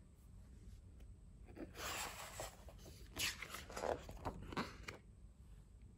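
A picture book's paper page being turned by hand, rustling softly in two spells, the second the louder.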